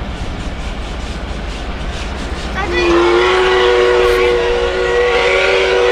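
DT668 steam locomotive's whistle blowing one long chord of several pitches, starting about halfway through with a slight upward slide and held steady for over three seconds, over the train's steady low running noise.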